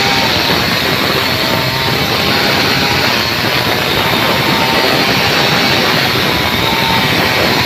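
Stihl two-stroke chainsaw running at full throttle, ripping lengthwise along a log. The sound is loud and steady throughout.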